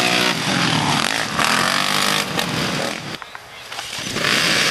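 Off-road race engines revving up and down as machines ride the dirt trail. The sound drops away briefly about three seconds in, then the engine noise comes back loud.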